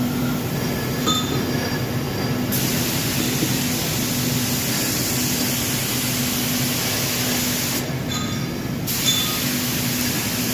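Automatic bushing-painting machine running with a steady, pulsing mechanical hum, while a high spray hiss switches on about two and a half seconds in, cuts out for about a second near eight seconds, and comes back.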